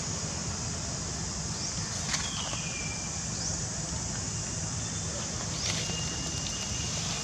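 Steady high-pitched insect drone with a low rumble underneath, and a couple of thin whistle-like calls: one falling about two seconds in, and a held tone near the end.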